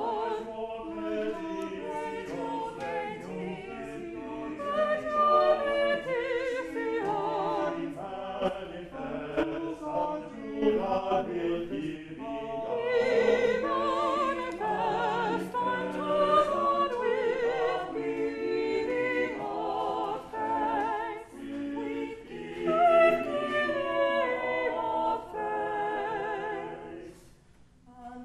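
A small choir singing an offertory anthem in harmony, with vibrato, in a reverberant church. The voices pause briefly near the end.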